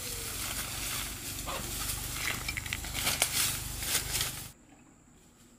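Rustling and crackling from ginger plants and soil being handled during harvest, with scattered sharp clicks. The sound cuts off abruptly after about four and a half seconds.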